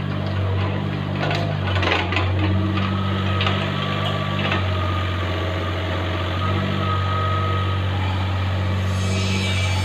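Mini excavator's diesel engine running steadily, its pitch shifting as the hydraulics take load while the boom swings and digs, with a faint hydraulic whine. The bucket clatters against rubble twice in the first half, and a rattle of gravel comes in near the end.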